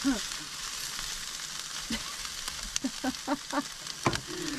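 Onions sizzling steadily in a frying pan, with a few short squeaky blips about three seconds in and a sharp knock near the end.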